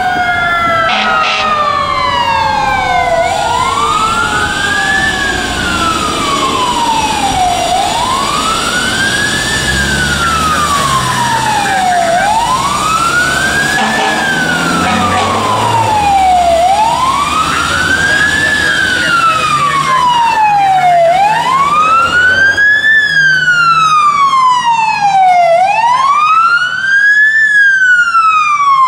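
Fire engine siren on a 2000 Pierce Saber, wailing up and down about every four and a half seconds and growing louder as the engine approaches. In the first few seconds a second, lower siren tone slides slowly downward beneath it.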